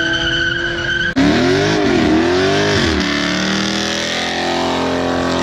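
Car engine held at a steady pitch, cut off abruptly about a second in. It then revs, the pitch swooping up and down twice before climbing steadily.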